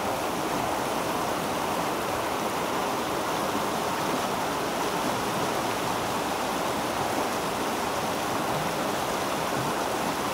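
Swollen, fast-flowing river rushing steadily, the water running high. It makes a constant, even sound with no breaks.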